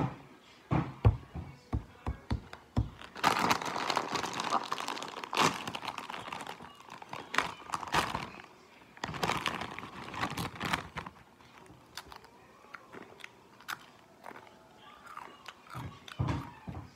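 A foil bag of Doritos crinkling and crackling as it is pulled open and handled, after a few short knocks at the start; the crinkling is densest for several seconds in the middle, then thins out to scattered rustles.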